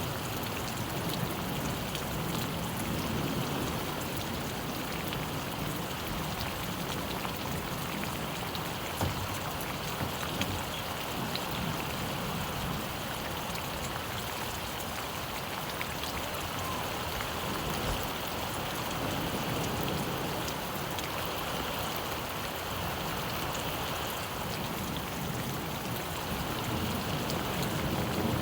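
Steady rain falling, an even hiss with a few sharper drop taps scattered through it.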